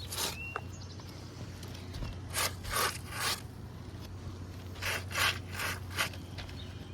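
Gloved hand rubbing back and forth across a gritty asphalt shingle in short scraping strokes, one, then a group of three, then a group of four, knocking loose granules from the creased, damaged shingle.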